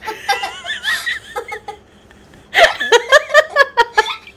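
A young girl laughing: giggles, a short pause, then, about two and a half seconds in, a louder burst of rapid laughter in quick pulses, about five or six a second.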